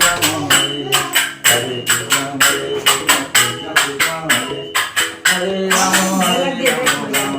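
Background music with a steady jingling percussion beat, about three strokes a second, under a melody.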